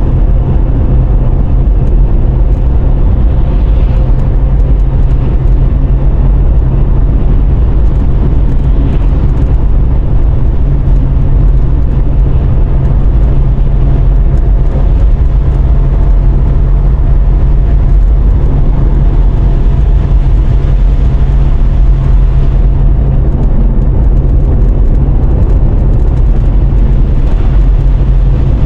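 Steady road noise of a car driving on the interstate: a low tyre-and-engine rumble with road hiss that holds even throughout.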